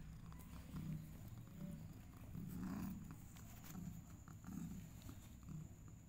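Mother cat purring, a low rumble that swells and fades about once a second with her breathing.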